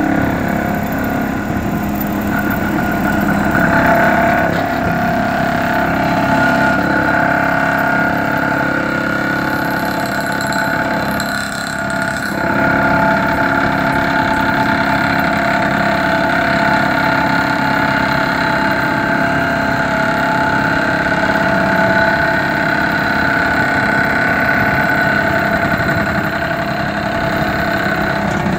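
John Deere excavator's diesel engine and hydraulics running steadily, a continuous hum with a few even, steady tones, dipping briefly about twelve seconds in.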